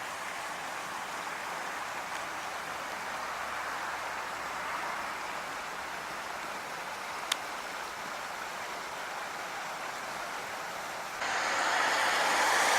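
Steady rush of running water from a rain-swollen creek and small waterfall, with a single sharp click about seven seconds in. Near the end it switches abruptly to a louder, brighter rushing noise.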